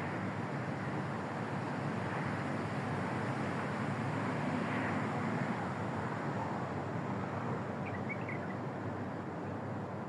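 Steady outdoor background noise with no distinct events, with a few faint short chirps about eight seconds in.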